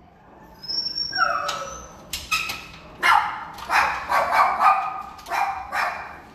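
A dog whines in a high, wavering pitch, then barks sharply about ten times in quick bursts.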